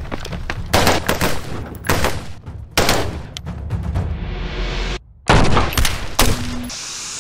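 Rifle shots, several fired at irregular intervals, over steady background music.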